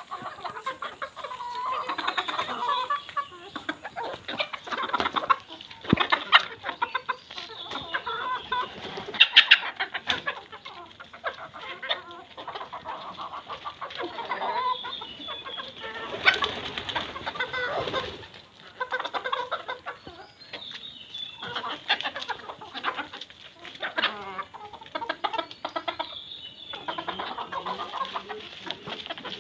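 A flock of domestic chickens clucking and calling as they feed, many short calls overlapping throughout.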